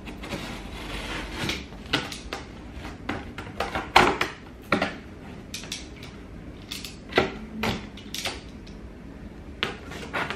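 Cardboard shipping box being cut open with a box cutter and its flaps pulled back: an irregular run of scrapes, rustles and knocks, the loudest about four seconds in.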